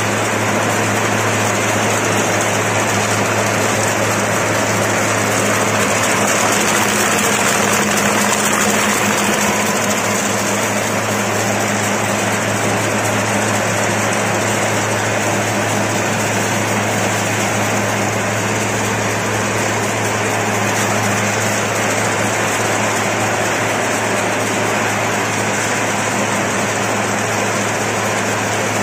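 Paper straw making machine running with a steady mechanical hum and whir.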